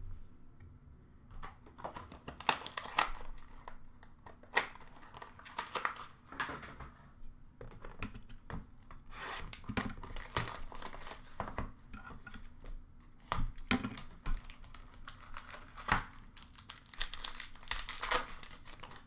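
Hockey card packs and card boxes being torn open and handled: irregular tearing and crinkling of wrappers and cardboard rustles, with sharp clicks and taps scattered throughout.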